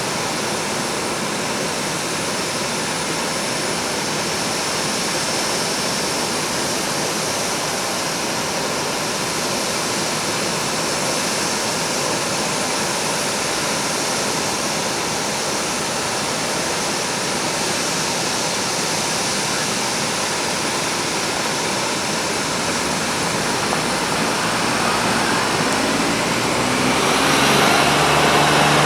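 Boeing 787-9 jet engines giving a steady roar with a faint high whine; in the last few seconds a rising tone appears and the sound grows louder as the engines spool up.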